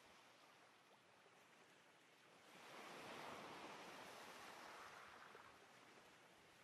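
Faint sea surf: waves washing in, swelling up and easing off again about halfway through.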